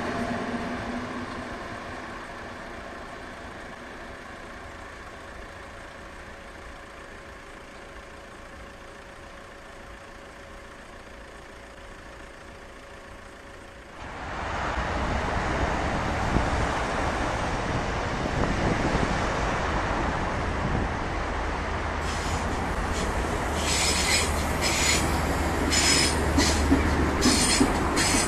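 A V 100 (class 203) diesel locomotive moving away, its engine sound fading steadily. Then three coupled Gravita diesel locomotives (classes 261 and 265) pass close with a steady low rumble, and from about two-thirds through their wheels squeal on and off.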